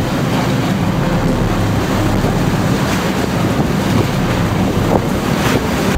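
Wind buffeting the microphone on a fast-moving rescue boat, over rushing waves and spray from the hulls in rough sea, with a low engine drone underneath.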